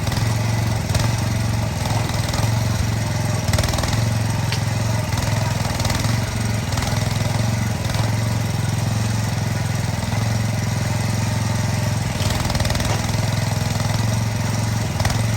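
AGT H12R mini excavator's small engine running steadily, with a few faint knocks.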